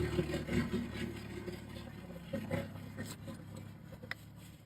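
A few faint scrapes and clicks of a hoof knife trimming a donkey's hoof, over a low steady motor hum.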